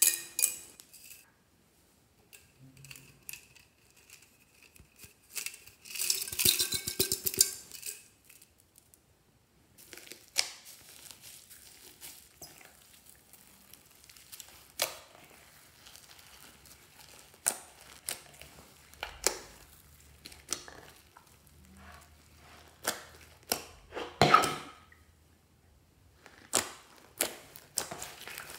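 Hands kneading and stretching glossy slime mixed with foam beads and glitter, making a run of sticky pops and clicks. About six seconds in comes a short rattle of toppings shaken from a bottle.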